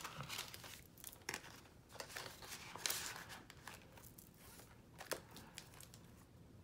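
Crinkling of clear plastic zippered binder pouches and rustling of paper bills as cash is tucked back in and the pouch page is turned, with a few short clicks.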